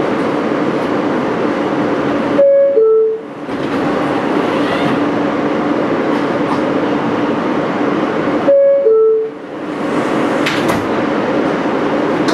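R160 subway car humming steadily, with the two-tone falling door-closing chime sounding twice, about six seconds apart.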